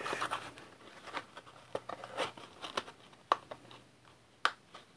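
Plastic packaging crinkling and small cardboard product boxes being handled, with scattered light clicks and taps, two sharper taps in the second half.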